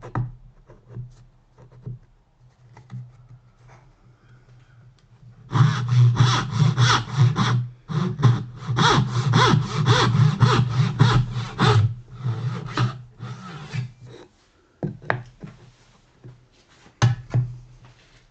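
Hand saw cutting a dovetail into a wooden board: after a few quiet seconds, quick, even back-and-forth strokes for about six seconds with a brief pause partway through, then lighter strokes, and two sharp knocks near the end.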